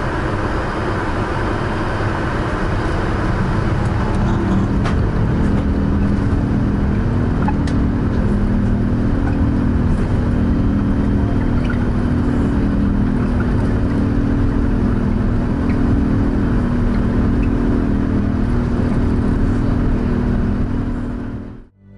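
Airbus A380 engines and runway rumble during the takeoff run, heard from inside the cabin: a loud, steady noise with a low hum of engine tones joining about four seconds in.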